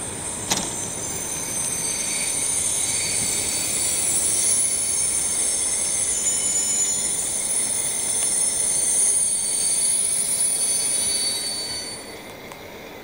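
Passenger train's wheels squealing as it pulls out slowly over the station tracks: several high, steady squeals that fade out near the end as the train draws away. A single knock about half a second in.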